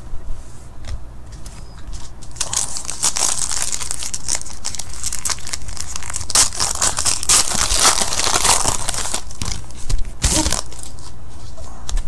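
Plastic trading-card pack wrapper crinkling and being torn open by hand. Light crackling at first, turning into dense continuous crinkling from about two and a half seconds in, with a louder crackle near the end.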